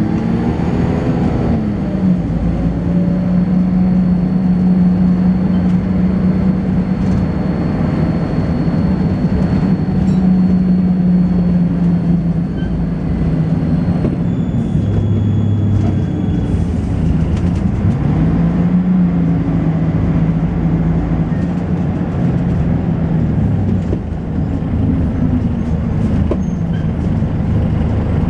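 Volvo B10BLE bus engine running under way, its note rising and dropping a few times as the ZF automatic gearbox changes gear, with a faint steady high-pitched whine above it.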